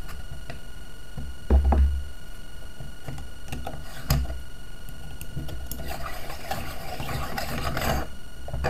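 Parts of a metal water-meter body being handled and unscrewed by hand: a dull bump, then a click, then about two seconds of gritty rubbing as a threaded brass ring is turned.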